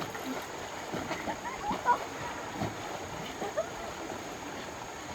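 Steady rush of waterfall water, with scattered, faint voices of people talking over it.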